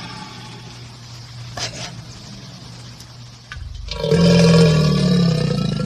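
An alligator's deep, rumbling bellow. It starts quietly, then swells loud about four seconds in and carries on through the end.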